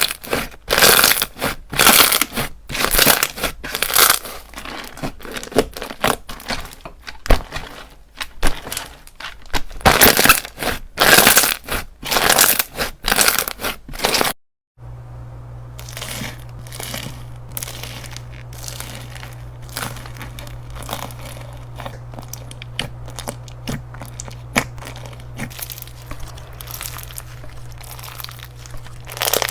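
Slime being squeezed, poked and stretched by hand, making crinkly crackling pops. In the first half the presses are loud and come about once or twice a second. After a brief break about halfway, softer crackles continue over a steady low hum.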